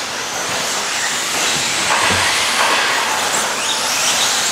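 Several electric RC stadium trucks racing on a dirt track: a steady hiss of motors and tyres, with short rising whines as trucks accelerate. A thump comes about two seconds in.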